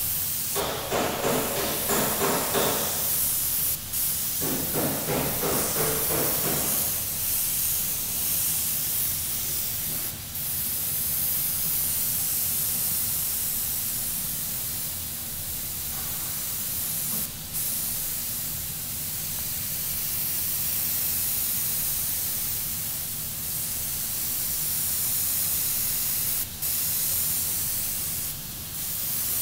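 Airbrush spraying paint: a steady high air hiss that breaks off briefly a few times.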